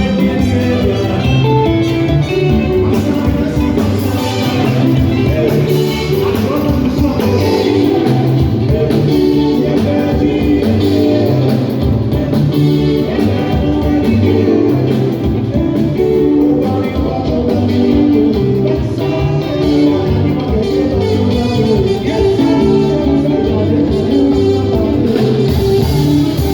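Background music with guitar and a steady beat, with some singing.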